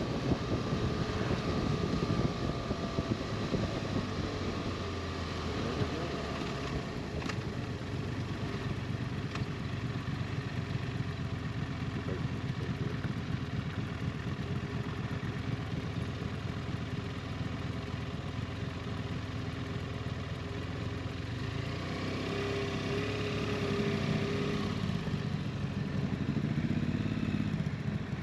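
Motorcycle engine running steadily, with its pitch shifting in the last few seconds.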